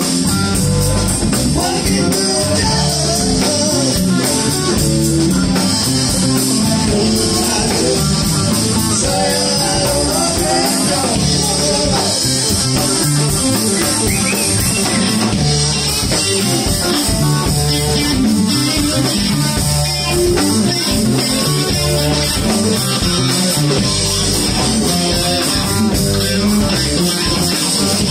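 Live rock band playing an instrumental stretch: electric guitars over bass guitar and a drum kit, with a steady beat.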